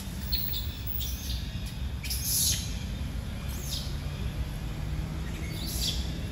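A few short, high-pitched chirping animal calls: a faint one just after the start, the loudest, falling in pitch, about two seconds in, and two more near the middle and end. A steady low rumble runs underneath.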